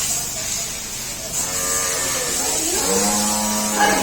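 A bovine on the dairy farm mooing twice: a shorter, fainter call about a second in, then a longer, louder one about three seconds in. A steady hiss runs underneath.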